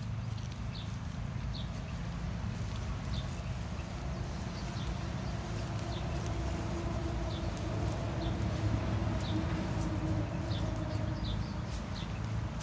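A small bird chirping over and over, short high notes about once a second, over a steady low rumble, with scattered sharp clicks.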